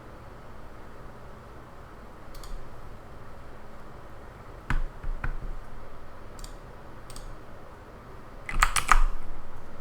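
Computer keyboard and mouse clicks over a steady low hiss: a few faint light clicks, two single louder clicks about halfway through, and a quick burst of keystrokes near the end, the loudest part.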